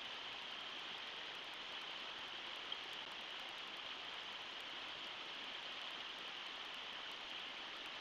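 Steady rush of shallow river rapids (riffles) running over rocks, with one brief tick about three seconds in.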